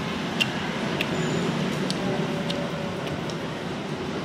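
Steady background street-traffic noise, with a few faint short clicks scattered through it.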